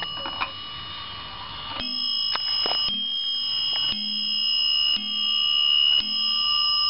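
Warmink Zaanse wall clock striking on its brass top bell: five blows about a second apart, starting about two seconds in. Each blow rings on into the next.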